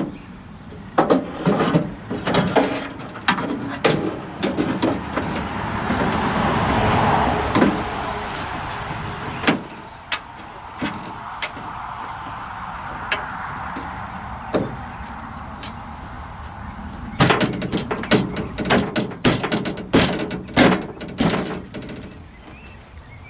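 Vent window assembly and door glass being slid and worked down into a pickup truck door's channels: long stretches of scraping and squeaking of metal and rubber, with many knocks and clunks, which come thick and fast near the end.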